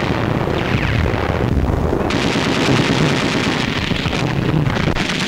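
Continuous din of battle: rapid gunfire like machine-gun fire over a steady rumble. The high crackle grows stronger about two seconds in.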